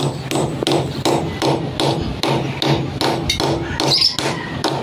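Hammer tapping in a pipe clip to hold a water pipe steady, in quick, even blows about three a second.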